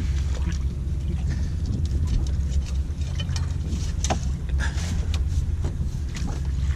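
Steady low rumble of wind on the microphone and water lapping at a small open boat's hull, with scattered short splashes and knocks.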